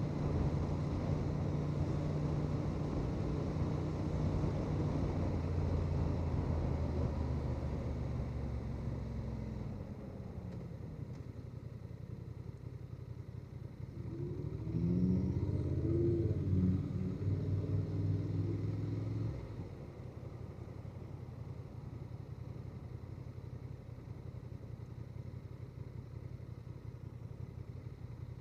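Honda Transalp 750's parallel-twin engine running under way, then dropping to a quieter steady idle about ten seconds in. A louder engine sound with rising pitch comes in for about five seconds in the middle and cuts off suddenly, leaving the steady idle.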